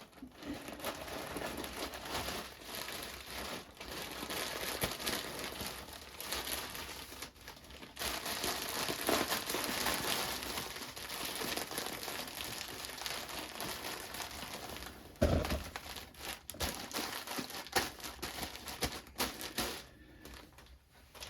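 Continuous crinkling and rustling as a homemade ice pack and a sweater are handled and pulled into place over the elbow, with a brief low thump about fifteen seconds in.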